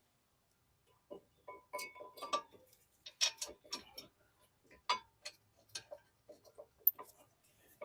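Thin metal brake pad hardware clips clicking and clinking irregularly as they are handled and snapped onto the caliper bracket, some clinks ringing briefly.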